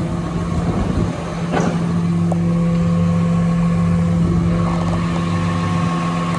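A diesel engine idling steadily, a constant low hum with fainter higher tones above it.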